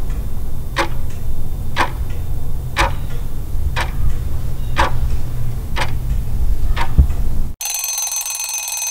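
Countdown clock-tick sound effect, one sharp tick a second over a steady low hum, marking the last seconds of the timer. Near the end the ticking stops and a high, steady ringing begins, signalling that time is up.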